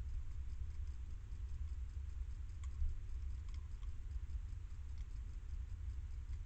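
Hedgehog eating from a metal dish: a few faint clicks of chewing and of its snout against the bowl, mostly in the middle, over a steady low rumble.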